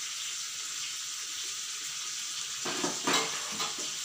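Masala-coated fish slices shallow-frying in oil in a pan, a steady sizzling hiss. Late on, a few short scrapes and knocks from the pan being handled.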